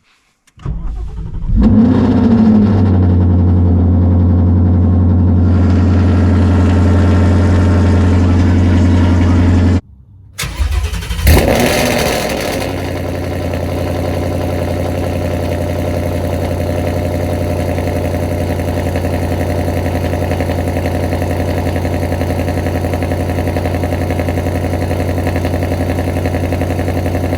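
Cold start of a 2021 Mustang GT's 5.0 Coyote V8 on catless long-tube headers: the starter cranks, the engine catches and flares, then holds a loud high idle. About ten seconds in the sound cuts off abruptly, the engine starts again with a sharp rev, and then it settles to a steady cold idle.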